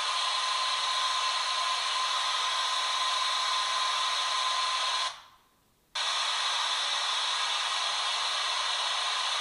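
Steady hiss of static, with a faint steady high tone running under it. About five seconds in it cuts out for under a second, then the hiss comes back without the tone.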